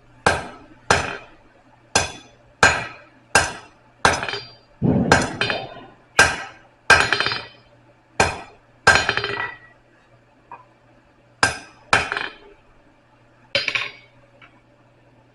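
Blacksmith's hammer striking a 3/8-inch steel rod on an anvil, drawing out a taper: about fourteen ringing blows at an uneven pace, with a pause about ten seconds in before three more.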